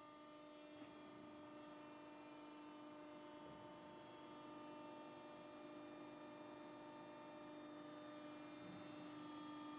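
Faint, steady electrical hum made of several fixed tones, unchanging throughout and growing slightly louder toward the end.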